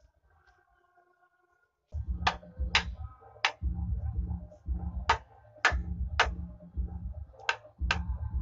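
Hatchet head knocking on a hardwood frame, driving its rail joints home. After about two quiet seconds come about nine sharp knocks in groups of three, with heavy low thuds under them.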